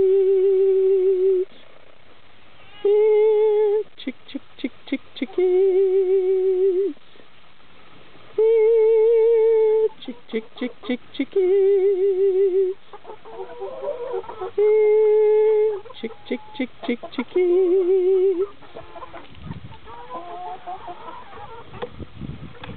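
A woman's sung chicken-feeding call, "Here, chick, chick, chickies": seven long held notes with a wavering pitch, each followed by a quick run of short "chick" syllables. Near the end the calling stops and hens cluck as they come running.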